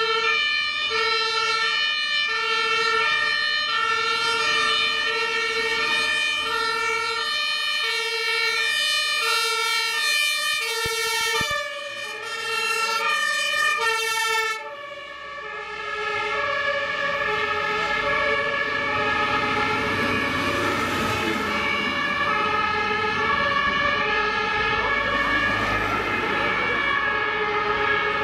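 German two-tone fire-engine siren (Martinshorn) alternating steadily between a high and a low note. About halfway through, the sound cuts to a fire engine passing close, its diesel engine and tyres heard beneath the two-tone siren.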